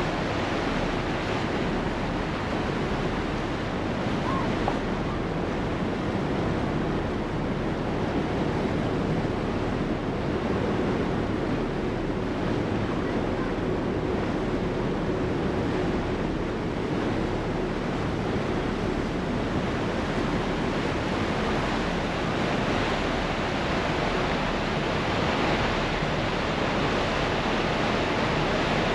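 Steady rush of churning water from a ferry's wake behind the stern, mixed with wind buffeting the microphone. A faint steady hum runs underneath through the first half.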